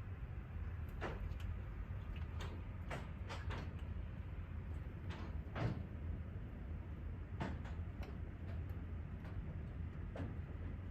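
Scattered hailstones striking hard surfaces, a sparse, irregular series of sharp clicks and knocks over a low, steady background noise of the storm.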